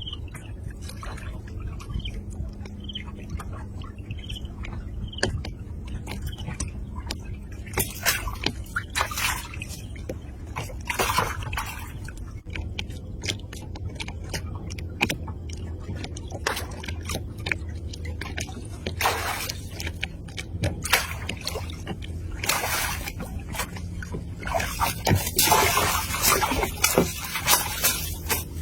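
Water splashing and sloshing in irregular bursts, busiest near the end, over a steady low rumble. A few short high chirps, from a bird or insect, repeat in the first several seconds.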